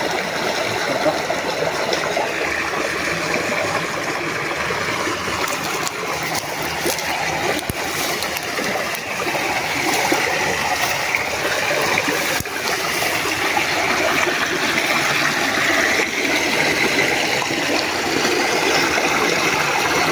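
Shallow rocky stream running steadily, water rushing and splashing over rocks and a small cascade.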